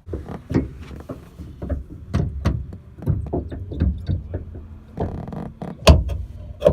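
Metal knocks and clanks of a new suspension strut being worked into place on a Honda Civic, many irregular hits over a low hum, the loudest knock near the end.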